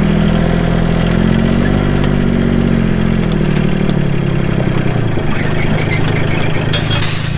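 A vehicle engine running steadily, its pitch easing slowly up and down with the throttle, with a brief sharp rattle near the end.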